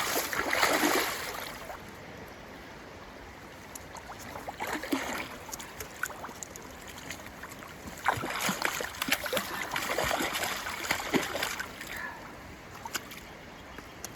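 River water running steadily, with bursts of splashing and dripping near the start, at about five seconds, and from about eight to twelve seconds.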